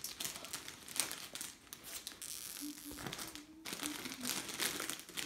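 Plastic candy wrappers and a clear plastic bag crinkling as handfuls of wrapped toffees and chocolates are packed, a continuous string of small rustles and crackles.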